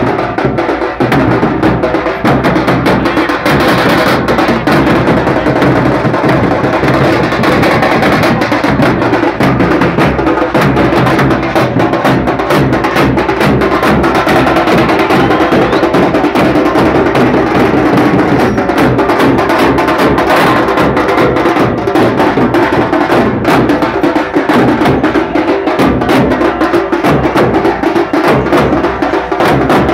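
Loud tasha drumming: steel-shelled drums beaten fast with sticks in a dense, continuous rhythm.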